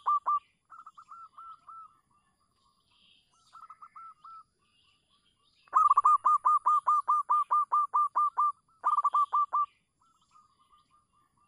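Zebra dove (perkutut) cooing: rapid runs of short staccato notes, about five a second, in bouts. The runs are quieter in the first few seconds, loud from about six seconds in until nearly ten, then fall to faint scattered notes near the end.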